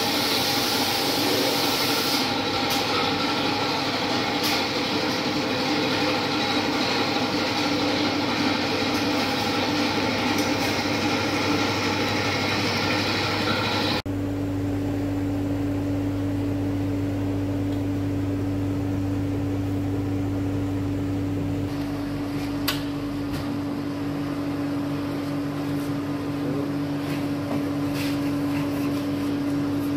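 A stainless-steel leaf-drying oven cabinet running: a steady machine whir and hum. About halfway through it changes abruptly to a quieter, steadier hum with one clear tone.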